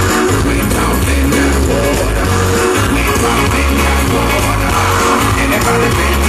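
A recorded gospel song playing on air: a singer over a full band with a steady, pulsing bass.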